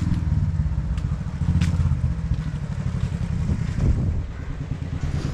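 A small engine running steadily close by: a low, even hum with a fast pulse.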